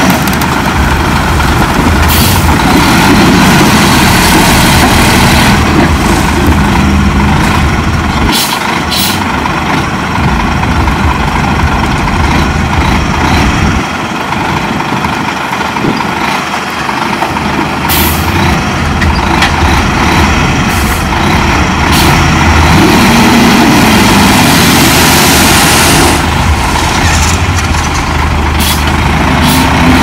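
Heavy diesel earthmoving machinery working under load, engine pitch rising and falling as it pushes and eases off. A few sharp metallic clanks and a brief hiss break through the engine sound.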